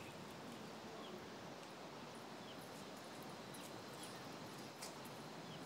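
Faint, steady outdoor ambience with a few soft, scattered footstep taps on a concrete lane and a few tiny high chirps.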